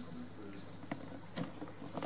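A cat chewing a mouse: wet crunching with two sharp crunches in the second half.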